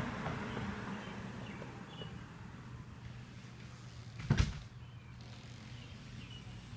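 A passing car's tyre and engine noise fading away as it drives off down the street, leaving a low hum. A single brief thump about four seconds in is the loudest sound, with a few faint bird chirps.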